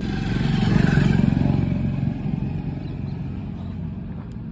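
A motor vehicle engine passing by, growing louder to a peak about a second in and then fading away.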